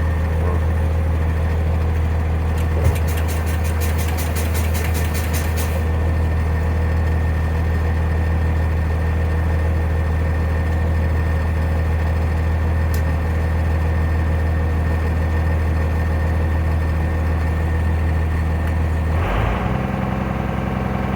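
Cummins ISB 5.9 24-valve diesel of a Blue Bird TC/2000 school bus idling steadily, freshly started after sitting about two months. A quick run of ticking lasts about three seconds a few seconds in, and near the end a brief rush of noise comes as the engine note shifts.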